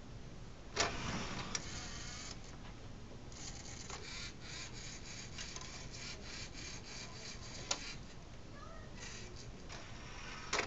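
A Lego Mindstorms NXT robot CD changer and an external DVD drive at work as a CD is placed on the drive's motorised tray: motors and plastic gears whirring and clattering in three spells, with sharp clicks about a second in, near eight seconds and at the very end.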